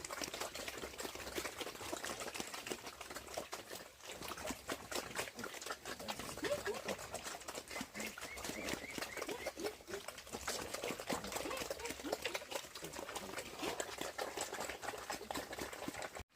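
Farm animals feeding and calling: a dense, continuous patter of small clicks with short, scattered calls throughout.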